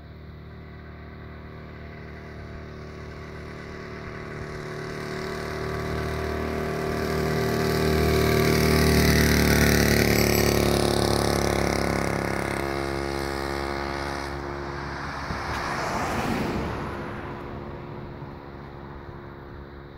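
MAW clip-on two-stroke bicycle auxiliary engine buzzing as the motorised bicycle approaches, passes close by and rides away, getting louder, dropping in pitch as it passes about halfway through, then fading. A brief rushing swell of noise comes about three-quarters of the way in.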